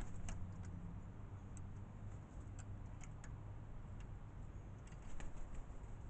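Irregular sharp taps and ticks of a crow's beak pecking at food on a feeder table, coming in small clusters over a faint steady low hum.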